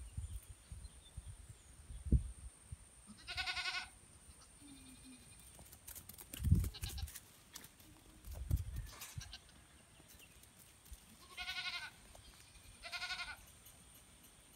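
Nigerian Dwarf and mini-mancha goat kids bleating: three short, high-pitched bleats with a wavering pitch, one about three seconds in and two close together near the end. A few dull low thumps fall between them.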